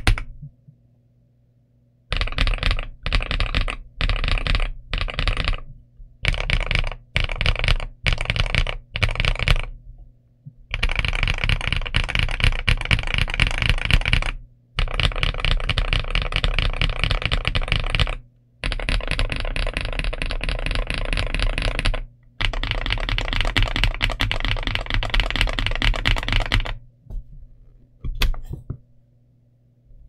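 Typing on a Boyi K104 Pro full-size mechanical keyboard with Boyi Jadeite Green switches and dye-sub PBT Cherry-profile keycaps, close-miked. After about two seconds of quiet come short bursts of keystrokes, then from about ten seconds in long stretches of fast continuous typing with brief pauses, ending in a few scattered keypresses.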